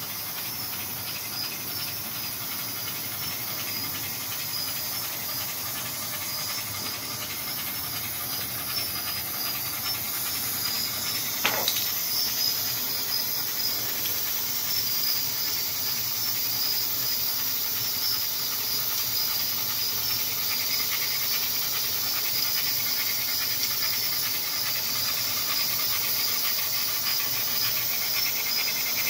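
MTH O-gauge Shay model locomotive's onboard sound system playing steam hiss and fast chuffing, slowly getting louder as the train draws closer. A single sharp click sounds about a third of the way through.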